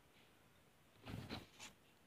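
Wooden spoon and fork moving through fried instant noodles in a glass bowl: a short scraping, rustling scoop about a second in, and one more soft stroke just after.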